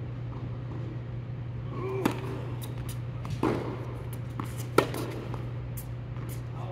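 Tennis ball struck by rackets in a singles rally: two sharp hits about three seconds apart, with a duller knock between them, over a steady low hum.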